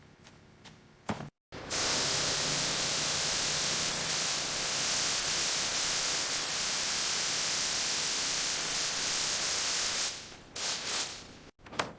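A loud, steady hiss of spraying or blowing air that starts abruptly, runs for about eight seconds and cuts off, with a few short knocks before and after it.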